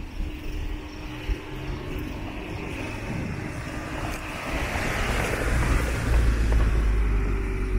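A motor vehicle passing close by in street traffic, its noise swelling to a peak about five seconds in, followed by a heavy low rumble.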